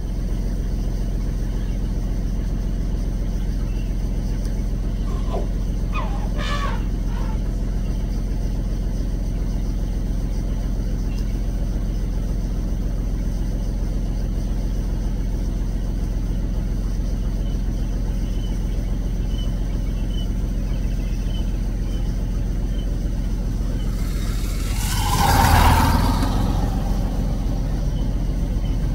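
Vehicle engine idling steadily with a low hum. A louder rushing sound swells and fades about 25 seconds in.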